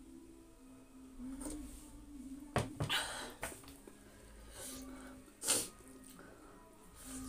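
Close-up eating and drinking sounds: sipping from a ceramic mug, a couple of sharp knocks about two and a half seconds in as the mug is set down on the table, then short mouth noises of eating rice by hand.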